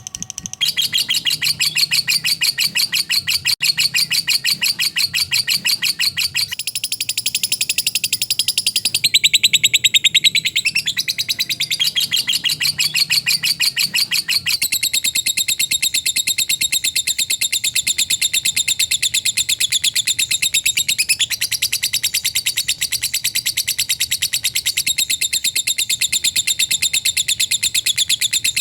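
Lovebird singing a long, continuous 'ngekek' chatter: a fast, unbroken run of rapid, tightly spaced high chirping notes, shifting in pitch a few times along the way.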